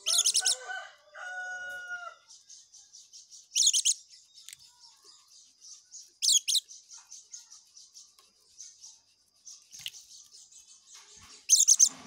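A white-eye (pleci) in ngekek, its continuous chattering song: a fast run of faint high chips throughout, broken about five times by loud, brief high twittering bursts a few seconds apart. A lower, drawn-out call sounds behind it in the first two seconds.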